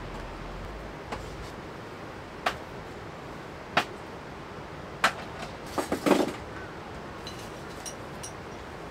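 Small decor items being set down and moved around on wooden shelves and a wooden crate: single light knocks every second or so, then a quick cluster of clatters about six seconds in, over a steady background hiss.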